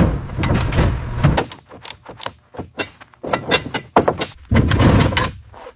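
Irregular series of metal clanks and knocks as a heavy part is lowered and seated on a hoist, in quick clusters, thinning out for a moment about a second and a half in and busiest near the end.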